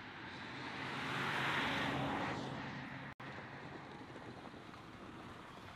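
A vehicle passing by: its noise swells to a peak about a second and a half in and fades away by about three seconds.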